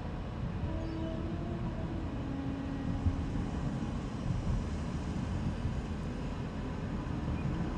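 Car with a 1.7 CDTI four-cylinder turbodiesel driving along: steady engine drone and road noise, with a faint hum.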